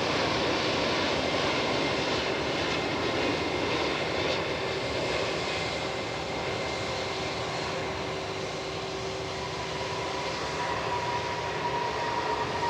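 Airbus A330 jet engines on landing, a continuous loud rushing rumble with a steady whine that comes in during the second half.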